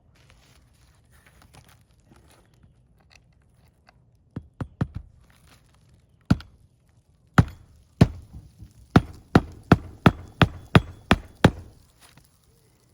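Nailing on an asphalt-shingle roof to fit a replacement shingle: three quick taps, a single blow, then a run of about a dozen sharp hammer strikes at roughly three a second that stops near the end.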